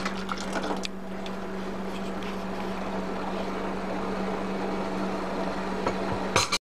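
Sugar syrup simmering and bubbling in a steel saucepan on an electric stove, still short of the one-string stage, over a steady low hum. A few light clicks of a spoon against the pot come in the first second, and a short knock comes just before the end.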